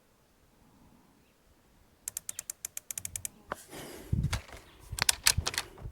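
A rifle scope's elevation turret being dialed up: a quick run of about a dozen even clicks about two seconds in. Several louder clicks and knocks follow near the end.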